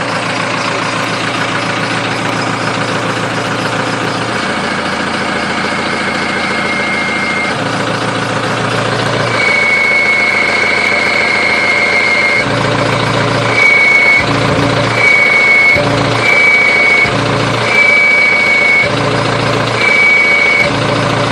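Cummins diesel idling with an HE351VE variable-geometry turbo. A high, steady turbo whine comes in whenever the exhaust brake is switched on and drops out when it is switched off, and the engine note shifts at each switch. The whine first holds for a few seconds at a time, then comes on and off about once a second near the end.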